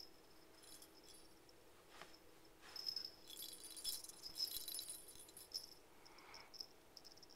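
Small jingle bell on a cat toy rattling in quick bursts as a kitten bats it, busiest from about three seconds in to about five and a half seconds.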